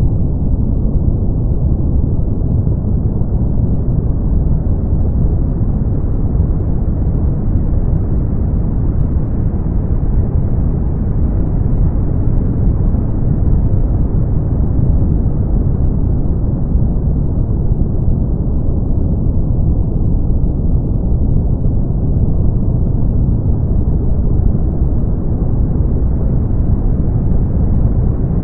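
Generated brown noise: a steady, deep hiss weighted toward the low end, its brightness slowly rising and falling over many seconds.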